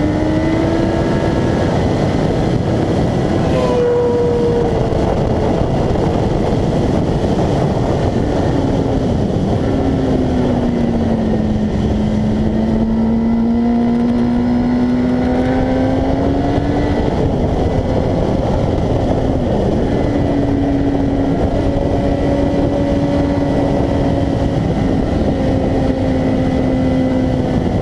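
Sport motorcycle engine running hard at track speed, its note holding, climbing with the revs and briefly dipping twice, over loud wind rush.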